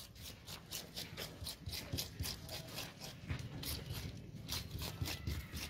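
Knife scraping the scales off a carp in quick repeated strokes, about three or four a second.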